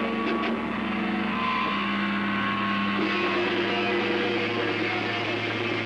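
Distorted electric guitars through amplifiers holding long sustained notes in a dense, loud wash, the held pitches shifting every second or so.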